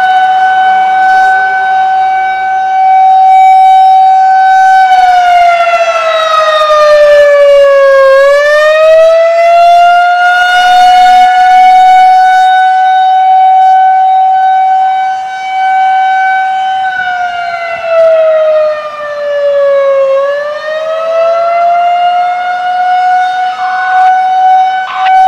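Federal Signal 2001-130 rotating outdoor warning siren sounding a loud, steady single tone during a test. Twice the pitch sags and climbs back to its held note, and the level swells and fades.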